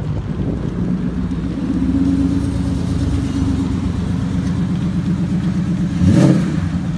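A car's V8 engine idling steadily through its exhaust, with a short louder rush of noise about six seconds in.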